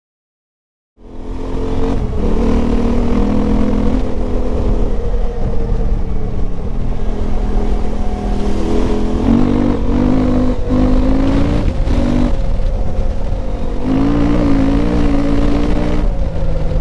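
KTM 890 Adventure R's parallel-twin engine running loud through a Wings slip-on exhaust with the dB killer removed; the engine note starts about a second in and shifts in pitch a few times as the revs change.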